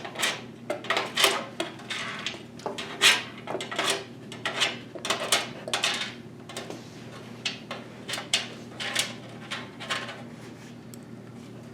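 Repeated sharp metallic clinks, taps and scrapes of screws and a screwdriver working against the steel expansion-slot bracket of a PC case, fixing a graphics card in place. They come thick for the first six seconds or so, then thin out and stop near the end.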